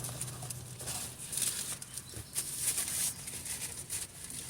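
Eating sounds from someone eating a shrimp taco: soft, irregular crackles and rustles, several each second.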